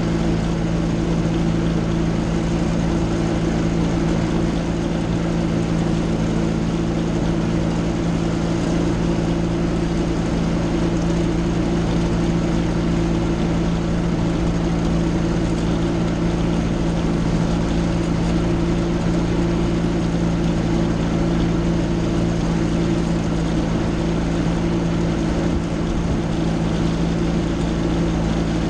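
Rotax 503 two-stroke twin-cylinder engine and pusher propeller of an Aerolite 103 ultralight, purring smoothly at steady low power while taxiing. The pitch holds level throughout, with no revving.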